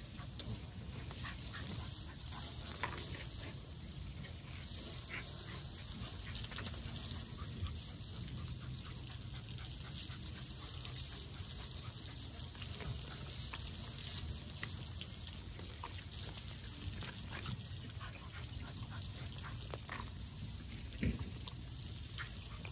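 American pit bull terrier gripping and tugging a rope spring pole hanging from a tree, making dog sounds as it works the rope. Scattered light clicks and scrapes run through it.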